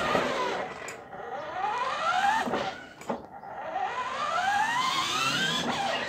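A children's electric ride-on car's motors and gearboxes whining, rising in pitch as the car speeds up and then cutting off with a click, twice.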